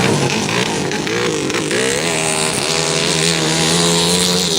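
Motorcycle engines running loudly: one engine's pitch swings up and down as it is revved, over a steadier engine note and a dense wash of noise.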